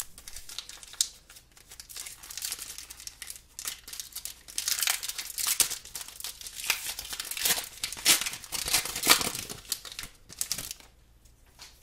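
Foil wrapper of a Pokémon TCG booster pack crinkling and being torn open by hand. It makes a dense crackle that grows louder in the second half and dies away near the end.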